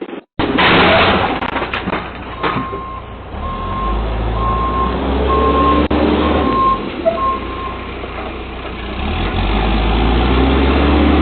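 Backhoe's diesel engine running with its reversing alarm beeping about six times, roughly once a second, then the engine carrying on alone. A few sharp knocks sound in the first couple of seconds.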